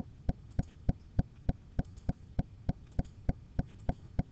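Steady, evenly spaced clicking, about three clicks a second, over a faint low hum.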